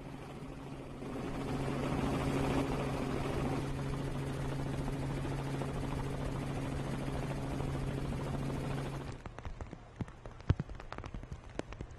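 Steady drone of a helicopter's rotor and engine with a low hum, cutting off suddenly about nine seconds in. After it come scattered faint clicks and knocks, one of them louder.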